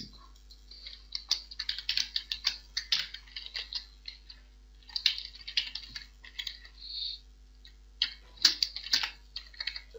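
Typing on a computer keyboard: rapid key clicks in three bursts, with short pauses about four and seven seconds in.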